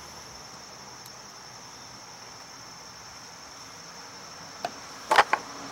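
Steady high-pitched insect chirring throughout, with a few sharp clicks of parts being handled about a second before the end, the middle click the loudest.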